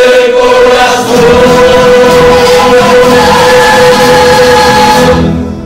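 A rondalla sings with acoustic guitars and a double bass: a choir of voices holds one long note. The note fades about five seconds in, and the low instrument notes carry on under it.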